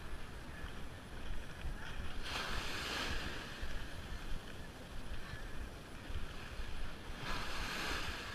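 Small surf washing up the beach: two waves break and hiss up the sand, one a little over two seconds in and one near the end, over a steady rumble of wind on the microphone.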